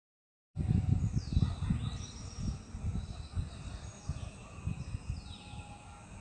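Outdoor ambience with wind rumbling on the microphone in uneven gusts, and birds giving a few short high calls, several sliding downward in pitch. It begins about half a second in after silence.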